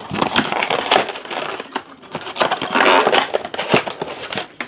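Trading-card pack wrappers being torn open and crumpled: a dense, crackling rustle of foil and plastic, full of small clicks.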